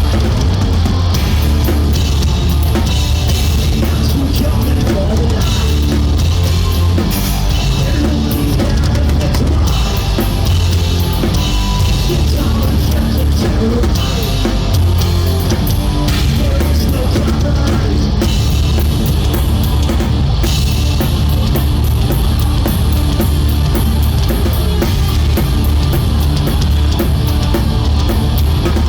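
Live rock band playing at full volume, with a loud drum kit up front: kick drum, snare and crashing cymbals over distorted electric guitars and bass.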